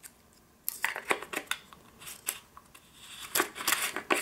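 Plastic screw cap being turned onto the threaded 40 mm neck of a gas mask filter canister: a run of quick plastic clicks and scrapes, starting just under a second in and thickest near the end.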